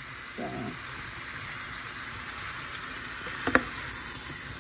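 Sliced zucchini, yellow squash and onion sizzling steadily in butter and oil in a stainless skillet, with a single sharp knock about three and a half seconds in.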